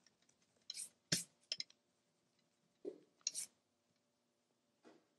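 Blue colored pencil and hand brushing and scratching on sketchpad paper: about six short scratchy swishes, one with a light knock a little over a second in.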